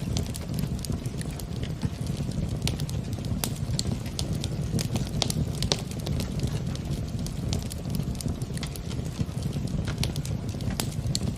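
Fire in a fireplace crackling, with frequent irregular sharp pops and snaps over a steady low rumble.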